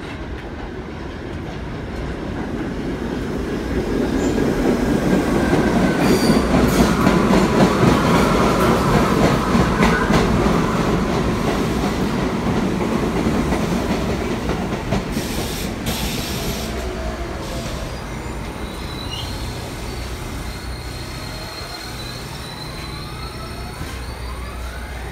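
Kawasaki R68A subway train pulling into a station: steel wheels rumble and clatter on the rails, getting louder as the cars pass close by, with wheels squealing. It then slows to a stop with whines that glide in pitch near the end.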